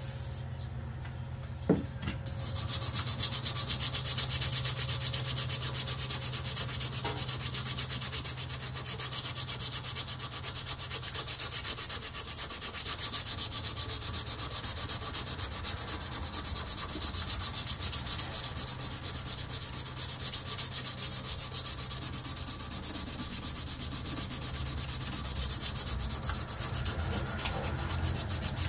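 Sandpaper rubbed by hand in fast short strokes along a KA-BAR knife's steel blade, sanding off pitting and old finish to bare metal. A single knock comes about two seconds in, just before the sanding starts.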